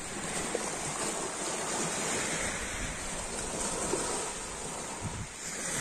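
Sea surf washing steadily, mixed with wind buffeting the microphone: an even rushing noise.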